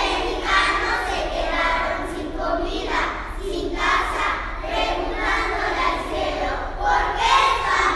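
A group of young children reciting a poem in unison, many small voices speaking together in a steady chant-like cadence.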